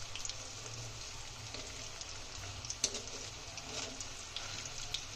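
Cauliflower koftas deep-frying in hot oil in a kadhai: a steady sizzle with scattered crackling pops, one sharper pop about three seconds in.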